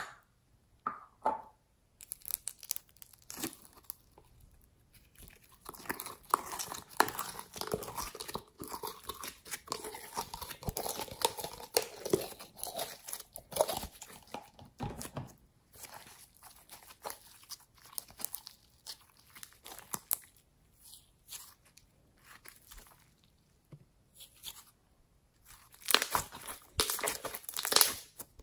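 Hands squeezing, folding and stretching glossy glittery slime: many small clicks and pops. They come thick through the middle, thin out later, and return in a louder burst near the end.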